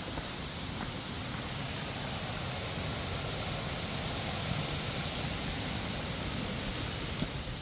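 Steady rushing of creek water flowing over rocks, with a few faint clicks.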